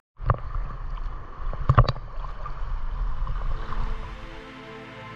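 Water sloshing and lapping against a GoPro action camera held at the surface while snorkelling, with a couple of sharp splashes about two seconds in. The water sound dies down near the end as soft background music fades in.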